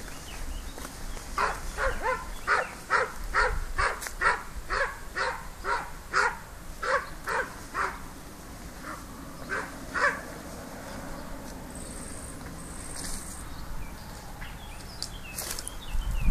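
Dog barking in a steady series, about two barks a second, for the first ten seconds or so, then stopping.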